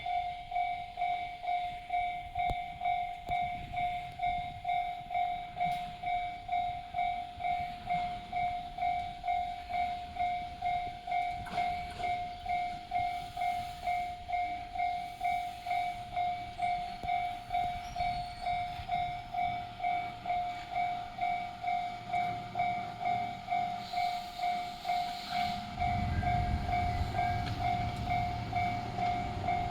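Japanese level-crossing alarm with the JR-standard electronic bell tone, fairly loud, dinging steadily about twice a second. A train's low rumble comes in near the end.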